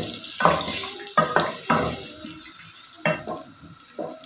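Wooden spoon stirring chopped onions in oil in an aluminium pot, scraping and knocking against the pot several times at an uneven pace, over a sizzle of the onions frying.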